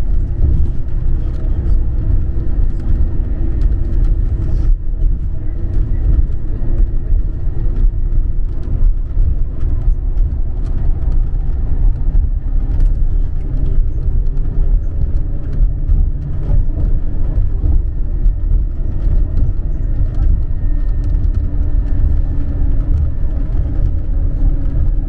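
Steady low rumble of a Scania Caetano Levante 2 coach driving along, engine and road noise heard from inside the cabin, with faint steady engine tones over it.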